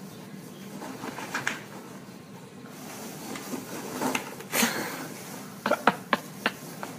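Foam packing peanuts rustling and scattering as a small puppy burrows through them in a cardboard box, busier from about four seconds in, with a quick run of short sharp sounds near the end.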